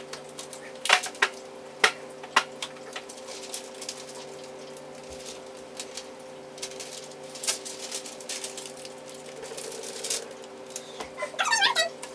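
Thin mirrored privacy window film crinkling and crackling as loose sheeting is handled and pulled off the glass, with sharp clicks, several loud ones in the first few seconds, over a steady hum. Near the end a short run of high, chirping sounds.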